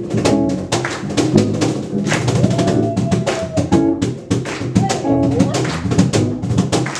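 Live acoustic band music: a woman singing over acoustic guitar and a steady, quick percussive beat, holding one long note near the middle.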